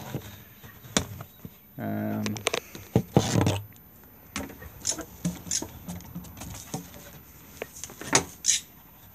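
Scattered light knocks and clicks from handling a vacuum hose and the wooden lid of a homemade bee vacuum box, the sharpest click about eight seconds in. The vacuum itself is not running.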